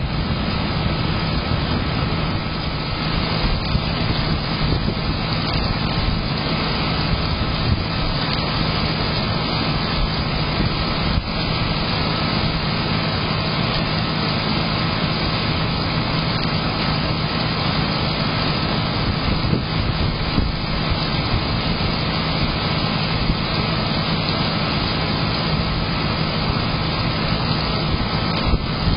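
Heavy monsoon rain and wind heard through a security camera's small microphone: a steady rushing noise with a low hum underneath.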